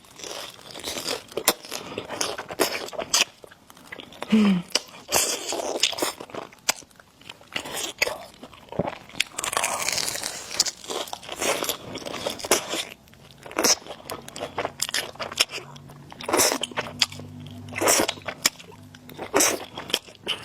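Close-miked eating sounds from a person eating spicy noodles and eggs: irregular chewing, wet mouth clicks and smacks, and short bursts of biting.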